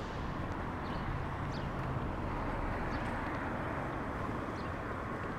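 Steady city-street background noise, with short, high bird chirps scattered through it.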